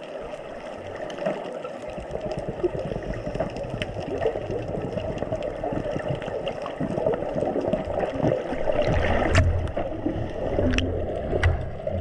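Muffled underwater ambience through a camera housing: a steady gurgling rush of water with low rumbling swells and a few sharp clicks in the last few seconds.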